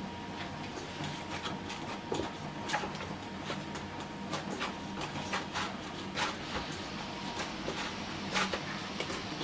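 Hands kneading warm rice-flour dough in a stainless steel bowl: irregular soft slaps and squishes as the dough is pressed and turned against the metal.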